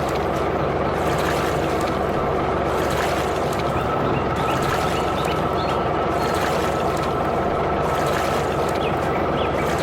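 Steady engine-like running noise that stays even throughout, with short high rising chirps dotted through it.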